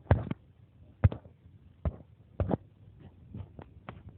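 A handful of short, sharp clicks or taps at irregular intervals over a faint background, the loudest two near the start and about a second in.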